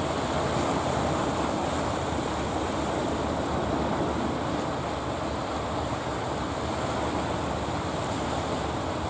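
Steady rush of surf and wind, mixed with the low rumble of a fishing boat's engine as it comes in through the waves.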